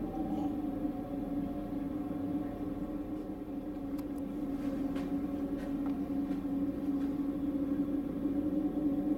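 A steady low hum whose pitch sags slightly, with a few faint clicks about four and five seconds in.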